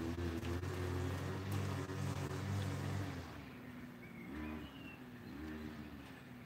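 A motor engine running steadily, which drops away about three seconds in; fainter engine sound with brief rises and falls in pitch follows.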